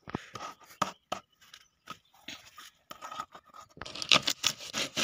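Close, irregular rustling, crackling and scraping of coir rope and a rubber inner-tube sleeve being handled against a plastic irrigation pipe joint, binding it so it won't leak. It gets busier and louder in the last second.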